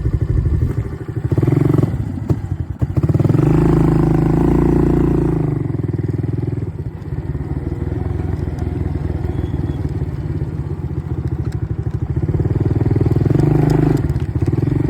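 ATV engine running while riding, revving up harder twice, about three seconds in and again near the end, with a few knocks and clatter about two seconds in.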